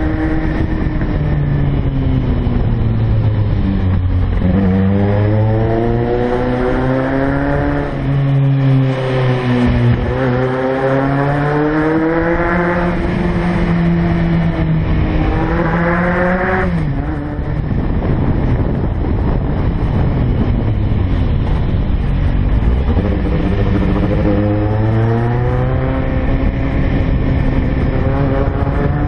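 Kawasaki Z750's inline-four motorcycle engine heard from on the bike as it is ridden through bends. The revs climb and drop several times as it accelerates, shifts and rolls off the throttle, with a sharp drop in revs a little past halfway.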